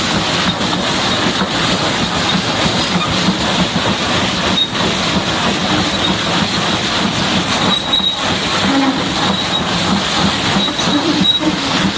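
High-pressure water jet hosing down a Caterpillar D8R bulldozer: a steady loud rush of spray, with a faint high whine that comes and goes.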